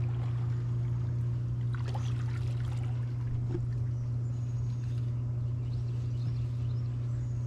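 Steady low hum with faint water trickling and light splashes.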